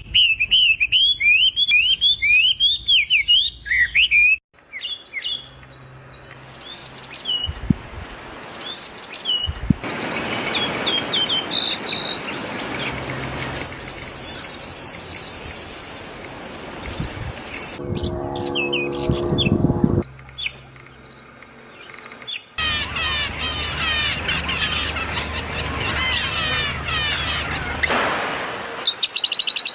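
Many small birds chirping and calling rapidly, in several short segments that change abruptly. A harsher, lower call or noise with a rich stack of tones stands out about two-thirds of the way through.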